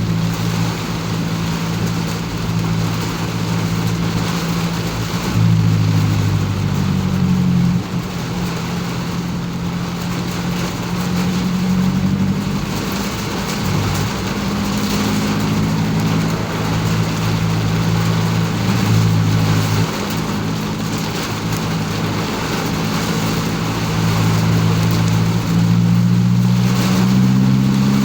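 A car's engine running as it drives in the rain, its hum stepping up and down in pitch several times as the speed changes, over a steady hiss of rain and wet road noise, heard from inside the cabin.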